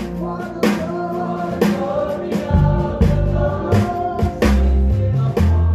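Gospel choir singing held notes over a live band, with a steady drum beat and a low bass line.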